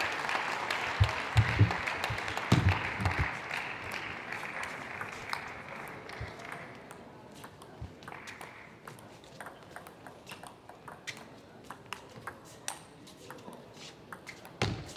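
Audience applause fading out over the first several seconds, with a few dull thumps early on, then scattered sharp clicks of a celluloid table tennis ball.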